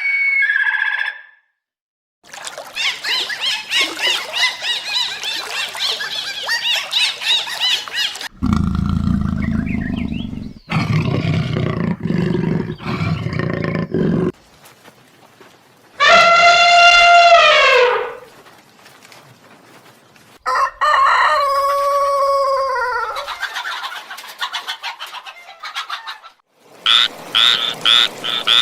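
A string of different animal calls one after another: dense bird chirping, a low rumbling stretch, two long calls that rise and then fall, and near the end a fast run of frog croaks.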